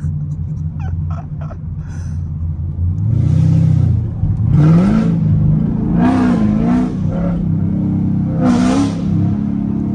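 Straight-piped C7 Corvette Grand Sport's 6.2-litre LT1 V8 running at low speed, then pulling harder from about three seconds in. It rises in pitch in several short surges, the clearest near the middle, as heard from the open-top cockpit.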